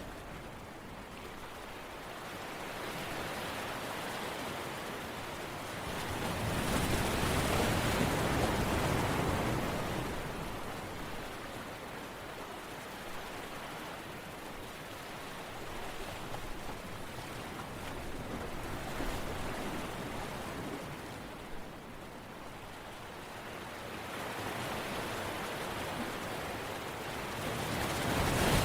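Ocean waves washing in, a steady hiss that swells louder about seven seconds in and again near the end.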